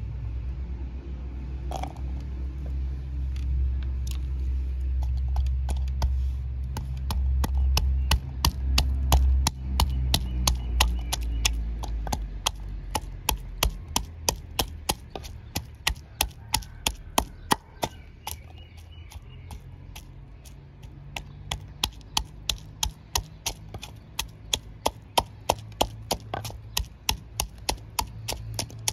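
Wooden pestle pounding garlic cloves in a wooden mortar: a steady run of wooden knocks about two a second, starting about two seconds in. A low rumble lies under the first half.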